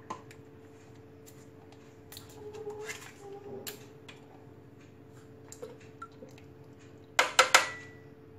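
A plastic yogurt pot knocked against the rim of a Thermomix's stainless-steel bowl, about four quick sharp taps about seven seconds in, to empty the last yogurt into the bowl. Before that there are only faint soft rustling noises.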